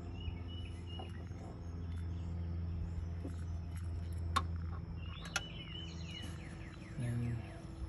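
Outdoor ambience: birds chirping over a steady low hum, with a few sharp clicks as spade connectors on the ignition coil wires are handled.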